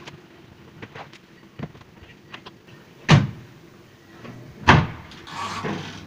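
Plastic lids of a twin-tub washing machine being shut, two loud knocks about three and about four and a half seconds in, after some light clicks and rustling from loading the spin tub. Near the end the spin-dryer motor starts with a steady low hum.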